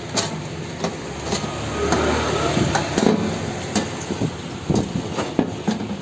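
A series of irregular sharp clicks and knocks, like the metal casing and parts of a voltage stabilizer being handled on a workbench.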